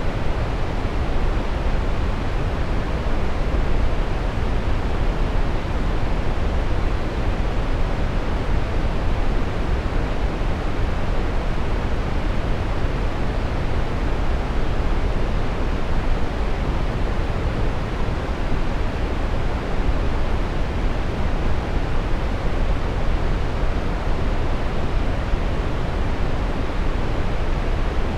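Steady brown noise: an even, unchanging rushing hiss, strongest in the deep low end and falling away toward the highs.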